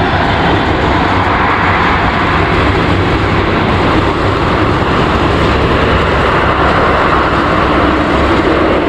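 Boeing 737 jet engines giving a loud, steady, even roar as the airliner rolls down the runway after touchdown.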